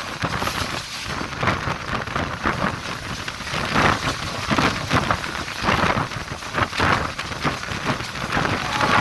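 Electric train running along the line: a continuous rushing rumble with irregular clatter from the wheels and track.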